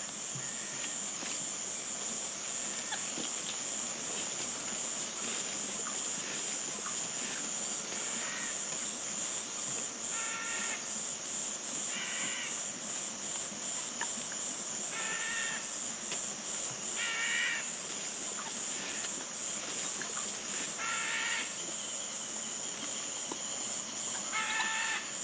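Steady high-pitched drone of insects such as crickets, with a short call from a bird or other animal repeated half a dozen times, every two to four seconds from about ten seconds in.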